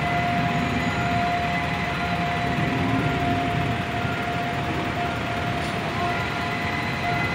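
Steady road traffic noise, a low rumble with a steady high tone running through it and no break.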